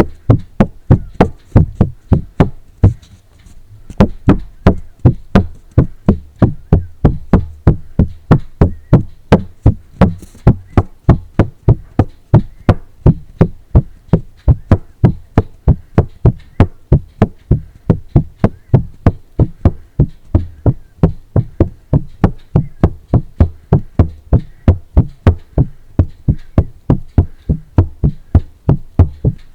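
Tapping on paper in a steady rhythm, about three dull taps a second, with a short pause about three seconds in.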